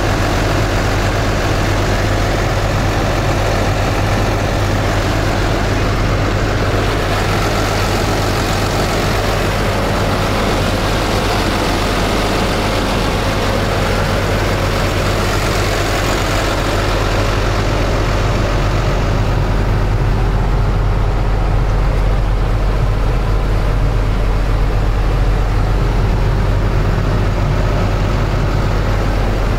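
Cummins ISB 6.7-litre six-cylinder diesel engine of a Freightliner M2 106 truck idling steadily.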